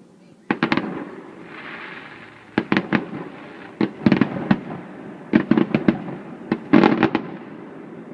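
Fireworks bursting in quick clusters of sharp bangs, about six volleys in eight seconds, with a rushing hiss between the first volleys.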